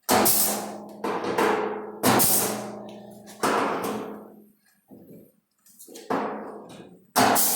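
Sheet metal struck hard about six times at uneven intervals, each blow ringing out for about a second with a low metallic hum: a hammer or mallet working a car's quarter panel into place.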